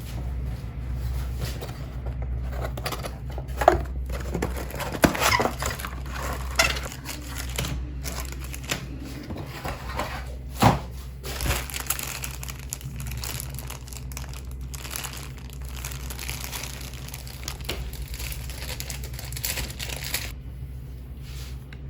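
Plastic packaging crinkling and rustling as it is handled, with a few sharp clicks and knocks.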